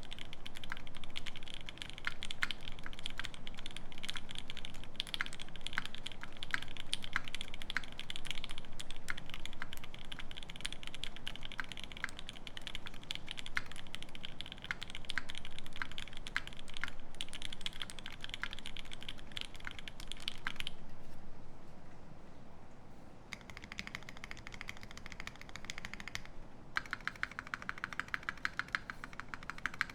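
Fast typing on a Keycult No.1/60 keyboard with a brass plate, lubed C3 Banana Split linear switches and GMK keycaps: a dense, even run of key clacks. After about twenty seconds the typing stops. A short lull follows, then a thinner sound ending in a fast, even run of clicks.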